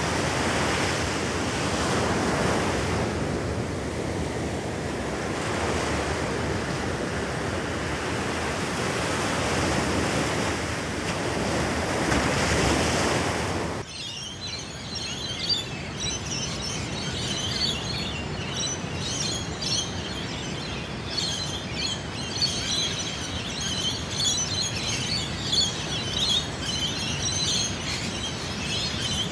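Ocean surf washing onto a beach, a steady roar of waves that swells and eases. About halfway through it cuts suddenly to a raucous dawn chorus of rainbow lorikeets, dense high chirping over a softer background of sea surf.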